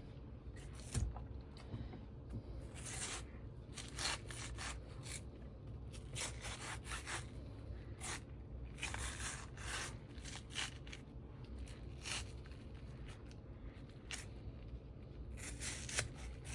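Knife cutting through watermelon flesh and rind in many short, irregular strokes, with scraping.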